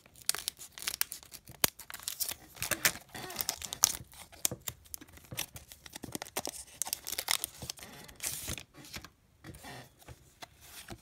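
Foil Pokémon booster-pack wrapper being torn open and crinkled as the cards are worked out of it: a run of sharp tearing and crackling that thins out near the end.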